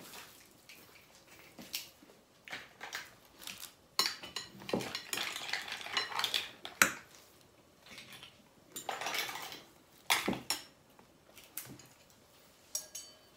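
Forks and knives clinking and scraping against plates and bowls as people eat, in irregular sharp clinks with a few longer scraping stretches.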